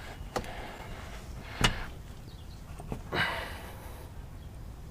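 Pliers gripping and twisting a spin-on oil filter loose: a few sharp clicks, the loudest about a second and a half in, and a short scraping rasp around three seconds in.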